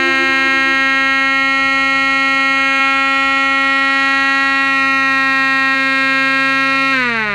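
3D-printed PLA siren driven by shaded-pole fan motors, sounding one steady high tone with many overtones. About seven seconds in, the pitch falls and the sound fades as the rotor winds down.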